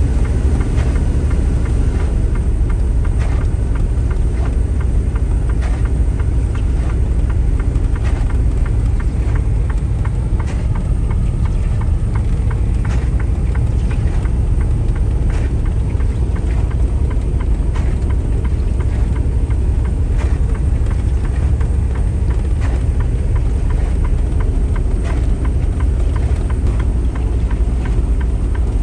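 Steady low rumble of a semi truck's diesel engine and tyre noise, heard inside the cab at low speed.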